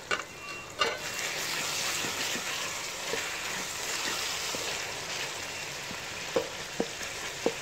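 Two metal clanks as the lid comes off a handi, then onion, tomato and ginger-garlic masala sizzling steadily in oil. A few light spoon knocks against the pot come near the end.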